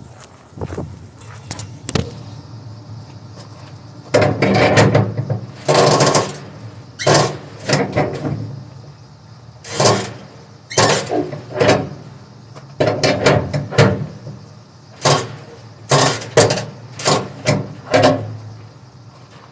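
Strap winches on a flatbed trailer being worked to tighten the load straps: irregular bursts of metallic clicking and clattering, several of them close together toward the end.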